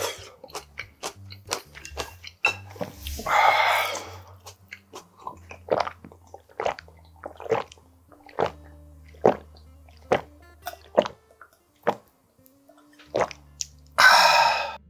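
Close-miked mouth sounds of a man eating cold noodle soup and drinking water: wet lip smacks, clicks and swallowing gulps. A loud slurp comes about three seconds in, and a long breathy exhale follows the drink near the end.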